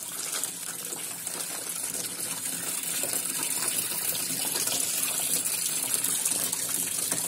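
Tap water running steadily and gushing into a washing machine tub as it fills.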